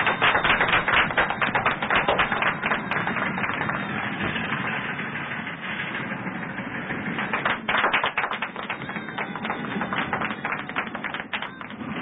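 A group of people applauding with many hands clapping, densest in the first few seconds, thinning out, then picking up again past the middle.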